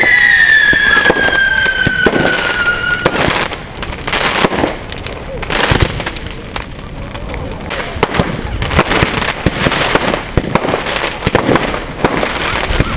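Fireworks going off: a falling whistle for the first three seconds or so, then many sharp bangs and crackles.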